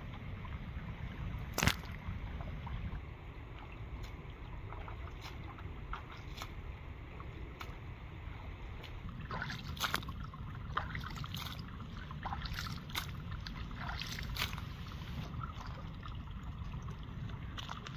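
Hands sloshing and scooping through shallow, muddy stream water while gathering freshwater snails. There is a sharp click about two seconds in and a run of small splashes and clicks in the middle, over a steady low rumble.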